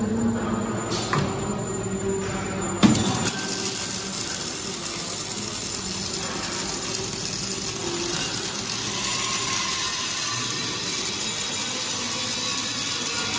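Automatic double-sided prop welding machine starting up with a sharp knock about three seconds in, then a steady noisy hiss as its two welding arcs weld both ends of a scaffolding prop tube at once.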